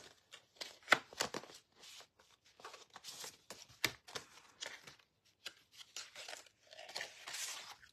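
Plastic packaging and a card insert rustling and crinkling as a thin metal die set is slid out of its clear sleeve and handled, with irregular clicks and scrapes; the sharpest click comes about a second in.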